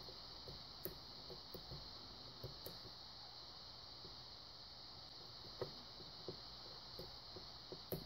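Faint, irregular clicks of a lock pick lifting the pin stacks in a Union padlock's cylinder during single-pin picking under tension, a pin setting with a click near the end.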